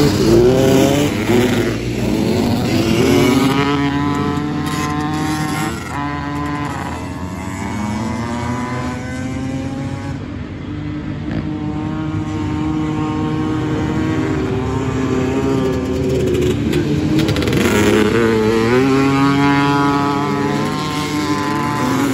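Several two-stroke ATV race engines revving, their pitch rising and falling with each throttle change and gear shift. They are loudest at the start as quads pass close, fade into the middle distance, then build again near the end as the pack comes back around.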